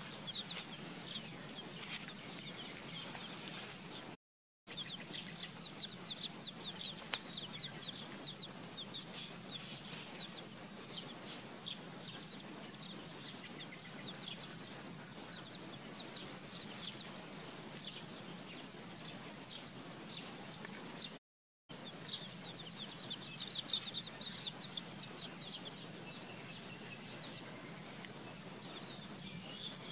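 Young chicks peeping: runs of short, high peeps, with a louder flurry about three-quarters of the way through. The sound drops out completely twice for a moment.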